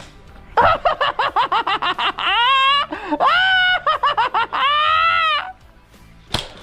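A man's voice laughing and crying out: a quick run of high-pitched "ha" bursts, then several long held, wavering yells. A single sharp snap near the end.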